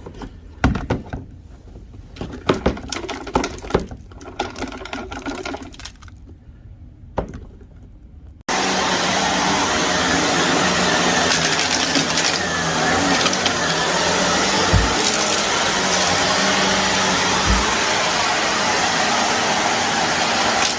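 Scattered clicks and knocks of handling, then about eight seconds in a Shark vacuum cleaner switches on abruptly and runs steadily with a low hum, with a couple of dull thumps later on.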